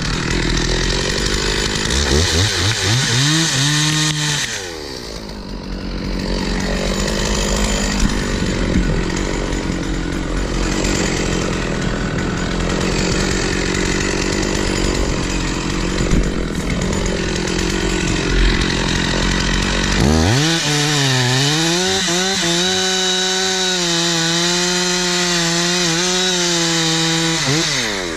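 Stihl 046 chainsaw working in timber, its engine revving and cutting. About 20 s in the engine note sags sharply under load, then picks back up to a steady high speed.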